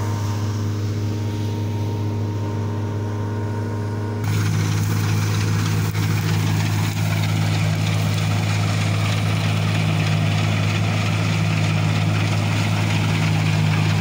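Combine harvester running steadily with a low engine drone. About four seconds in the sound jumps to louder and noisier as the machine cuts standing wheat close by.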